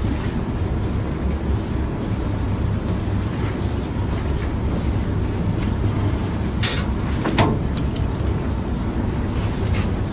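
Boat engine running steadily, a constant low rumble, with a brief rush of noise about seven seconds in.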